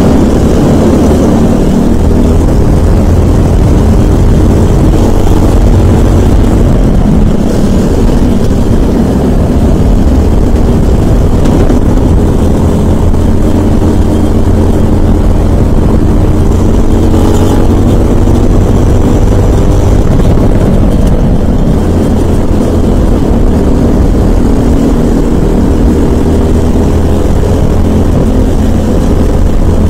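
Racing kart's Briggs & Stratton LO206 four-stroke single-cylinder engine running hard at race pace. It is loud and close, with its pitch rising and dipping gently as the kart accelerates out of corners and backs off into them.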